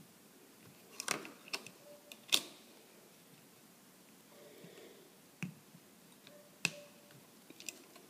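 Scattered sharp metal clicks and taps of a screwdriver working the terminal screws of a three-way toggle switch while a wire is fastened, the loudest about two and a half seconds in.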